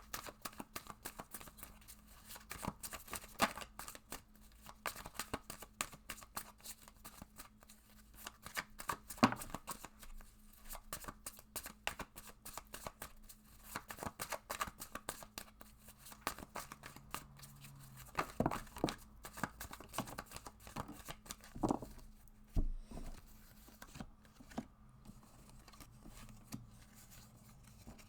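Tarot cards being shuffled and handled: a long run of quick papery flicks and taps, with a few louder snaps about a third of the way through and again just past the middle.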